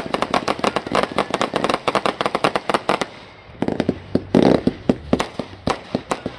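Fireworks going off in a fast, dense run of sharp cracks. There is a short lull about three seconds in, then a louder burst, and the cracking picks up again after it.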